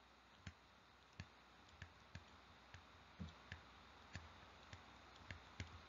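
Faint, irregular clicks, about two a second, from a stylus tapping and stroking on a tablet surface while a word is handwritten, over near silence.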